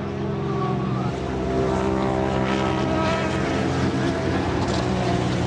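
Engines of 1000 cc racing motorcycles running at high revs on track, growing louder over the first couple of seconds and then holding steady, with pitch shifting as the riders change gear.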